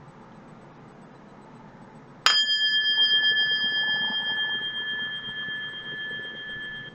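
A small bell struck once, about two seconds in, then ringing on with a high, clear tone that fades slowly.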